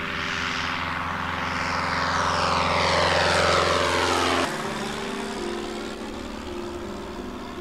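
Light single-engine propeller plane passing low overhead: the engine and propeller noise swells as it approaches, its pitch slides down as it goes over, and the sound drops sharply about four and a half seconds in.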